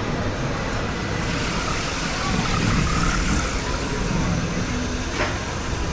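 Steady road-vehicle noise with a low rumble, faint voices underneath, and a short click about five seconds in.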